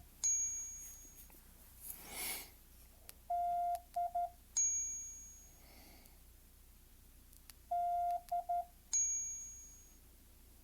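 A phone Morse code trainer app beeping a steady mid-pitched tone in a dah-di-dit pattern, one long beep then two short ones, twice, with a bright bell-like ding after each group and once just at the start. A brief breathy rustle comes about two seconds in.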